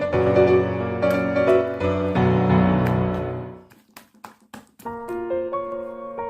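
Background piano music: one piece fades out about three and a half seconds in, a few sharp clicks follow, and another piano piece begins about a second later.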